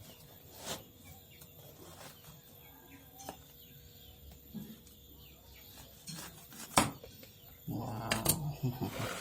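Knife and hands working open a durian's spiky husk: scattered sharp clicks and knocks, the loudest about seven seconds in, then a louder stretch of splitting and handling near the end as the fruit comes open.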